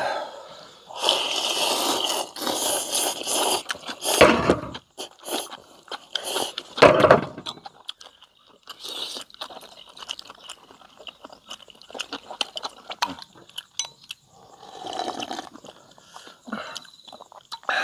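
People eating ramen: noodles slurped from bowls and chewed, in irregular noisy rushes, with small clicks of chopsticks against bowls.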